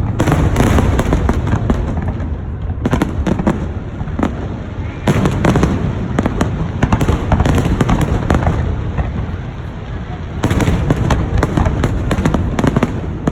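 Aerial fireworks bursting in a dense barrage: many bangs and crackles in quick succession, coming in waves that swell near the start, about three seconds in, about five seconds in and again about ten seconds in.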